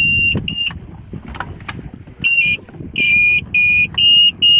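Motorboat's warning alarm beeping: a high, single-pitched beep repeating in short pulses, pausing for about a second and a half midway and then starting again faster, over a low rumble. Its cause is unknown on board; the passengers wonder whether they are out of gas.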